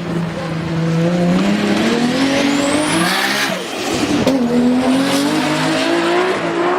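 Sports car engine accelerating hard, its note climbing steadily. The pitch drops sharply about three and a half seconds in as it shifts up, then climbs again.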